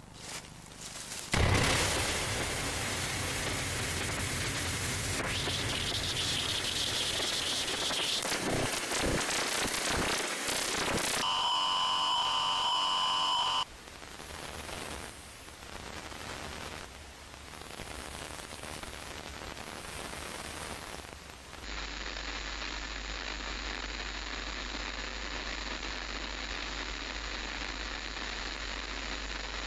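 Television static hiss, starting suddenly and loud about a second and a half in. After about eleven seconds two steady electronic tones sound over it for a couple of seconds; then the static is quieter, and in the last third it settles into a steady hiss with a low hum under it.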